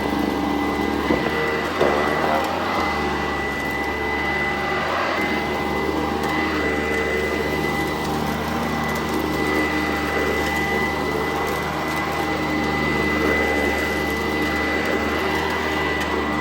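Sanitaire SC899 upright vacuum cleaner running steadily, its motor holding a constant high whine. There are a couple of light knocks in the first two seconds.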